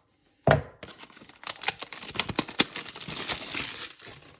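Packaging on a trading-card blaster box crinkling and tearing as it is handled and opened, with a thump about half a second in.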